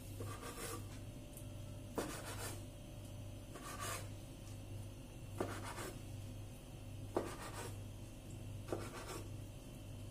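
Kitchen knife cutting a rolled, filled dough log into pieces on a wooden board. There are six cuts, about one every second and a half, each a short knock of the blade on the wood followed by a brief scrape.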